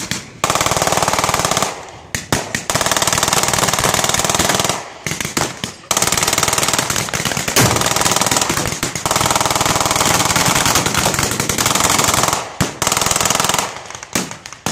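Rapid automatic gunfire with blank ammunition in long bursts: three bursts with short pauses between them, the last about seven seconds long, thinning near the end into scattered single shots.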